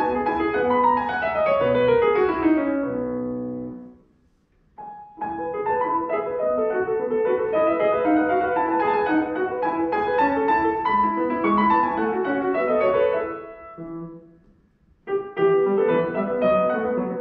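Solo grand piano playing classical music. A falling run dies away into a short pause about four seconds in, then the playing resumes; a second short pause comes near the end before the music starts again.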